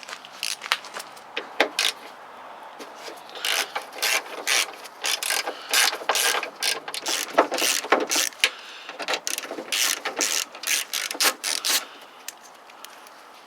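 Hand ratchet fitted with a spline bit, clicking in repeated strokes as it undoes spline bolts on a door lock. The clicks come in irregular runs and stop about twelve seconds in.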